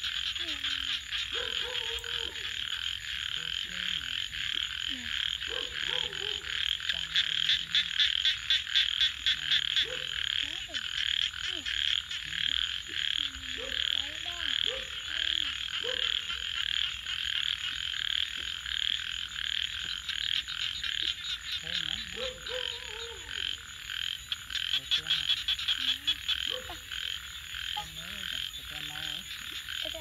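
Frogs calling in a chorus: a steady high pulsing trill with scattered lower croaks that bend in pitch, swelling louder twice.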